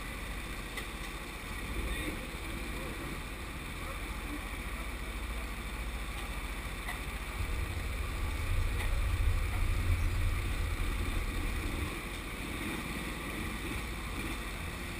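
Low, muffled rumble of go-karts idling in the pit lane, swelling for a few seconds in the middle.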